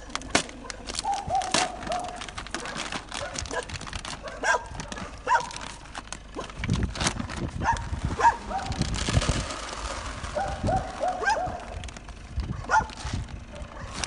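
A dog whining in short, falling cries, several times over, while plastic food sacks rustle and crinkle with some knocks and thumps.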